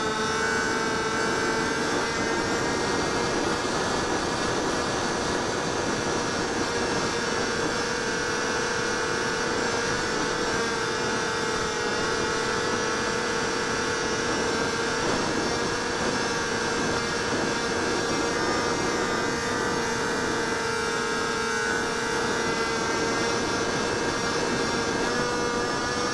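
HobbyZone Delta Ray RC plane's electric motor and propeller whining steadily in flight, heard from on board over a rush of air noise. The pitch wavers slightly and rises a little near the end.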